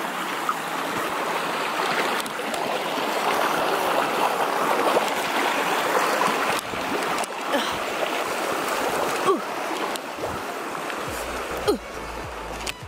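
Mountain stream rushing over rocks, a steady wash of water noise, with a few short thumps in the second half.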